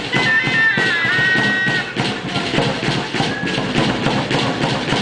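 Chirimía, a Mexican double-reed shawm, playing a high melody over steady drum beats. The reed melody stops about two seconds in, with only a brief note later, while the drumming carries on.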